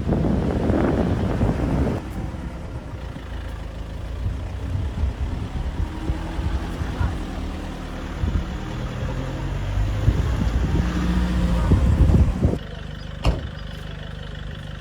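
A motor vehicle's engine running, with loud low rumble in the first two seconds and the sound changing abruptly near the end.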